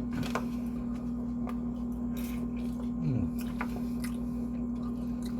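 Chewing and wet mouth sounds with small clicks, over a steady low electrical hum. About three seconds in there is a short sound that falls in pitch.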